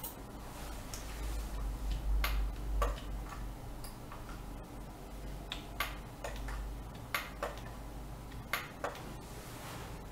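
Computer mouse clicks, about ten short sharp clicks at irregular intervals over a low steady hum.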